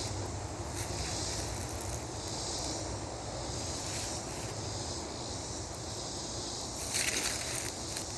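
Woodland ambience: a steady hiss over a low rumble, with louder rustling crunches starting near the end, like steps through dry leaves.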